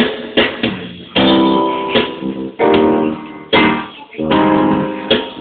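Guitar strummed in chords, with a strong stroke roughly every second and each chord ringing on between strokes.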